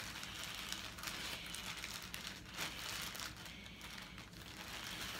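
Plastic garment bag crinkling faintly as it is handled and pulled open.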